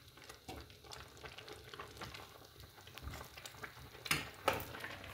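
Metal spoon stirring and scraping thick, simmering carrot halwa in a pan, with a faint sizzling and bubbling beneath as the milk cooks down. There are scattered soft scrapes, and two louder strokes about four seconds in.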